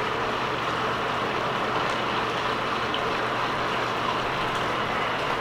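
Steady rushing of water pouring into a bathtub from the tap.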